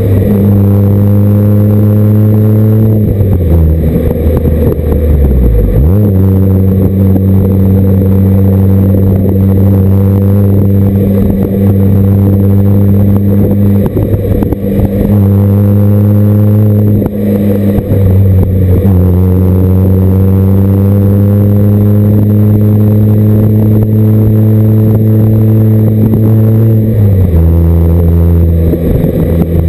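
Stock exhaust of a 2008 MINI Cooper base (R56) with its 1.6-litre four-cylinder, recorded right at the tailpipe while driving, a little distorted and tinny from the close camera. The engine note holds steady at cruising revs. About three seconds in it falls away for a few seconds, then jumps back up. Near the end it drops a step.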